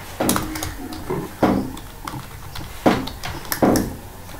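Computer keyboard keystrokes: a handful of sharp, irregular key clicks as code is typed.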